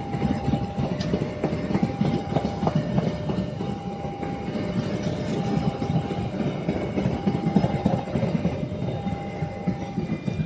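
A train passing close by, its wheels clattering over the rail joints. Over it, a two-tone signal alternates steadily.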